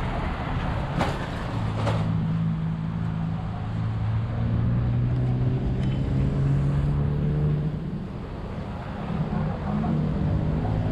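Road traffic: vehicle engines running close by with a steady low hum, and two sharp knocks about a second apart near the start.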